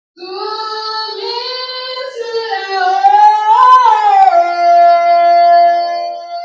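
A single high voice singing a slow melody that glides up and back down near the middle and ends on one long held note.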